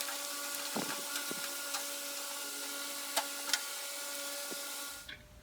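Electric fan running with a steady whirring hiss and hum, with a few light clicks of small parts being handled; the fan noise cuts off abruptly near the end.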